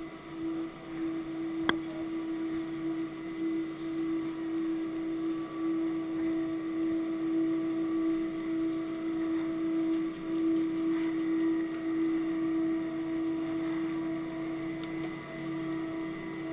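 Chairlift terminal machinery humming steadily at one constant pitch as the lift runs. A single sharp click about two seconds in.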